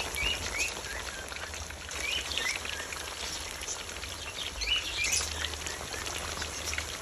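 Chicken frying in hot ghee in a kadhai over a wood fire: a steady sizzle with small crackles. Small birds chirp in short calls in a few clusters over it.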